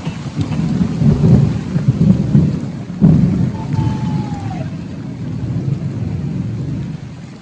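Thunder rumbling over heavy rain, with a sharp new clap about three seconds in that rolls on and fades over the next few seconds.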